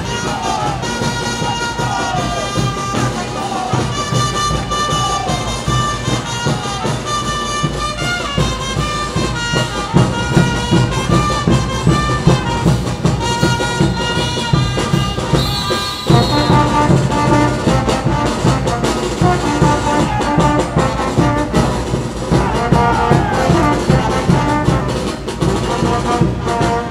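Festival dance music for a Tinku troupe: brass instruments playing held notes over a steady, driving drum beat. It drops briefly and moves into a new section about sixteen seconds in.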